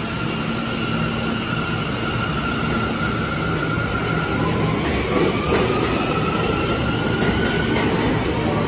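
New York City subway train in an underground station: a steady rumble and hiss, with a thin high whine that rises slowly in pitch from about halfway through.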